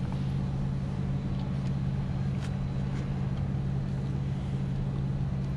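A steady low machine hum holding one constant pitch, with a few faint light clicks over it.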